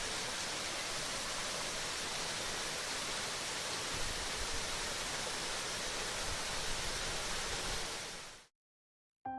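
Waterfall rushing with a steady, even roar of falling water, which fades out about eight seconds in; after a brief silence, piano music starts right at the end.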